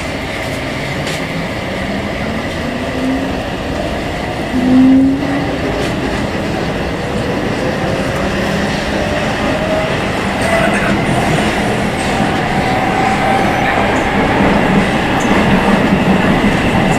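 Rio Metro Line 2 train accelerating, its traction motors growling with a tone that climbs in pitch over steady wheel and running noise. The low tone swells loud for about half a second about five seconds in. A higher whine then keeps rising as the train gathers speed.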